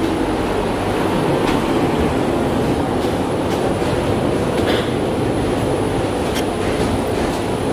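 Steady rumbling noise in a glass-walled airport jet bridge, with a few scattered clicks and knocks.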